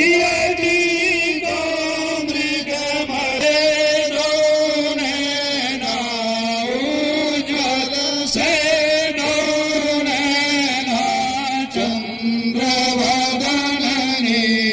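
A man chanting Sanskrit Vedic mantras for a havan fire offering, in a slow melodic recitation of long held notes that run one into the next, amplified over a loudspeaker.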